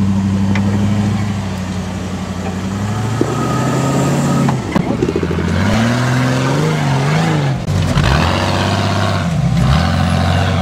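Off-road 4x4's engine running steadily, then revving up and down repeatedly from about four seconds in, with a few sharp knocks along the way.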